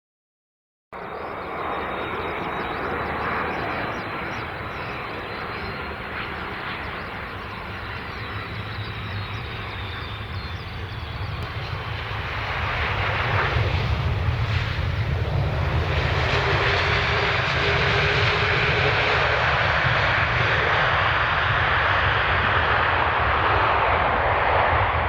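Jet aircraft engine noise after about a second of silence: a steady rush with a faint high whine that slowly falls, swelling to a louder, deeper rumble about halfway through and holding there.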